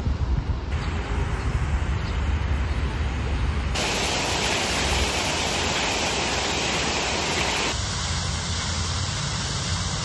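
Outdoor city ambience: a low rumble of traffic under a steady hiss, changing abruptly at cuts about a second, four and eight seconds in. The middle stretch is the brightest, loudest hiss.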